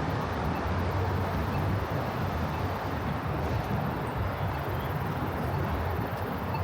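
Steady city street ambience: an even, low rumble of distant traffic, with no single event standing out.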